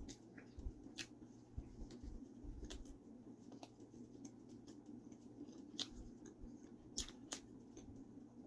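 Close-miked biting and chewing of a thin-crust margherita pizza slice, with scattered sharp, crisp crunches at irregular intervals.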